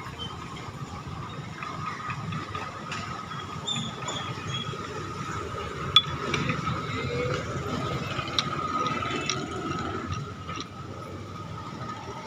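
Hero Super Splendor's 125 cc single-cylinder four-stroke engine running, with a steady high whine over the mechanical running noise and a sharp click about six seconds in. The noise is put down to a crankshaft problem.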